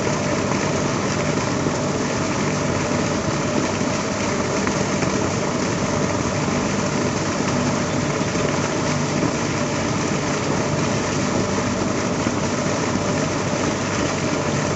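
A steady engine-like drone running without change, an even noise with a constant low hum in it.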